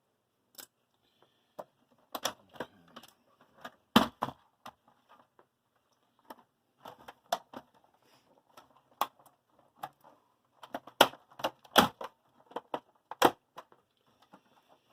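Irregular clicks and knocks of plastic and metal parts being handled while a satellite receiver is taken apart, with a sharper knock about four seconds in and a cluster of louder ones near the end.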